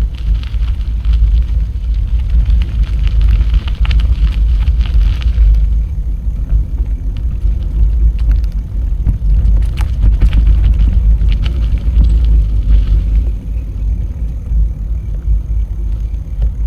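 Wind rumbling on the microphone of a camera riding along on a moving bicycle, with tyre noise from the path and scattered small clicks and rattles.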